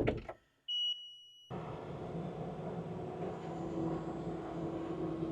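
A short electronic beep, then the steady running of a heavy-equipment engine with a low hum, which starts abruptly about a second and a half in.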